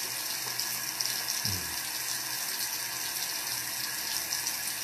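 Steady hiss of water running from a tap into a bathroom sink, with a short low vocal sound about a second and a half in.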